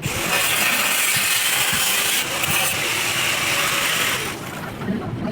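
Harsh, steady hiss of metalwork on steel lasting about four seconds, then stopping.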